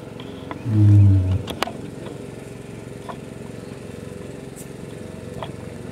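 A man's voice, one short utterance about a second in, followed by a steady low hum with a sharp click and a few faint ticks.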